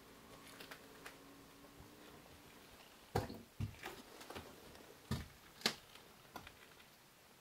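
A handful of sharp, irregular knocks and clicks in a quiet small room, the loudest about three seconds in and again near six seconds, with faint room tone between them.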